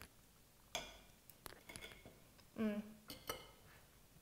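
Knives and forks clicking lightly against plates as people eat, with a short hummed 'mm' a little past halfway.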